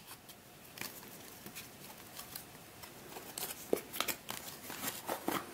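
Hands opening a small cardboard puzzle box and sliding a plastic cube out of it: faint rustling of the card with scattered small clicks and scrapes, several coming close together in the latter half.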